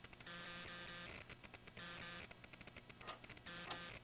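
Faint electrical hum with crackle, and a couple of clicks near the end as the Tektronix T932 oscilloscope's timebase rotary switch is turned to a faster sweep.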